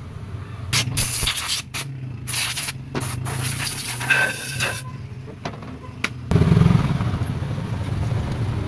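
Compressed air from a blow gun hissing in short on-and-off bursts, blowing the parts clean, over a steady low hum. About six seconds in, a louder low rumble starts and keeps going.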